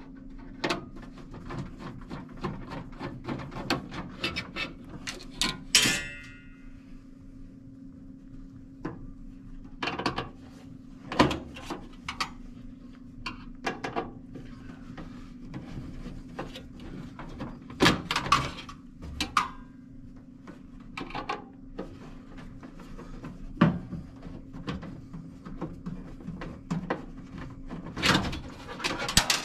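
Hand work on a range hood insert's sheet-metal parts: screws being taken out and the light panel worked loose, heard as irregular clicks, knocks and clatter, with a short metallic ring about six seconds in. A steady low hum runs underneath.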